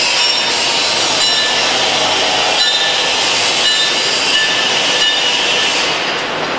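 Angle grinder grinding steel, a steady metallic screech with a high whine.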